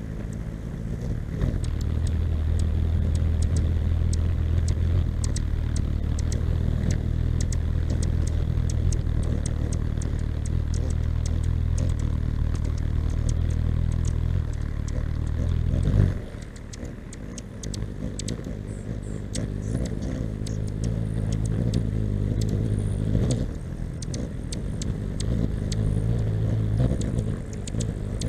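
Hummingbird wings humming close by as the birds hover at nectar, a steady low buzz that rises and falls as they come and go, with many quick high chips over it. A sudden knock about halfway through, after which the hum drops for a while.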